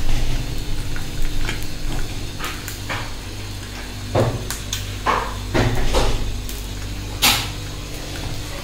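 Breakfast being cooked: scattered knocks and clinks of utensils and cookware, the loudest a sharp clatter near the end, over a steady low hum.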